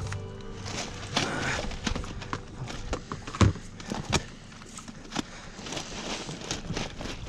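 Freshly caught bonito thrashing as they are bagged on a boat, with irregular knocks and thumps of fish against the deck and bag. The loudest thump comes about three and a half seconds in.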